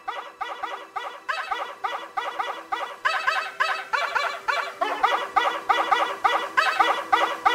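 Bark-remix music: short samples of a small white dog's single bark ("bork"), pitched to notes and played as a fast, even melody of several barks a second over a steady held note. It gets louder about three seconds in.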